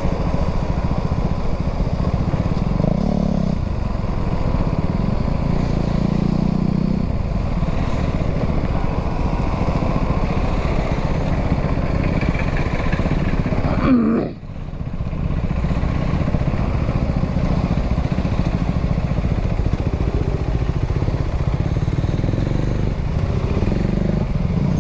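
2025 KTM Duke 390's single-cylinder engine running steadily under way. About halfway through there is a brief falling whine, and the sound drops away suddenly for a moment before the running resumes.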